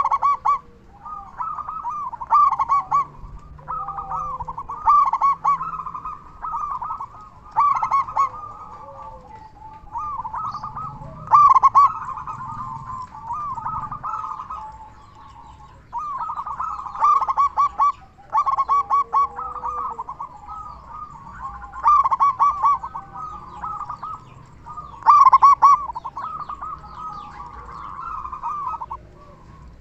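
Zebra dove (perkutut) cooing loudly and repeatedly: phrases of rapid rolling coos, a new phrase every one to two seconds.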